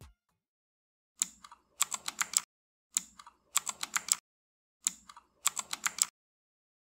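Computer keyboard typing: three short bursts of rapid key clicks, each about a second long.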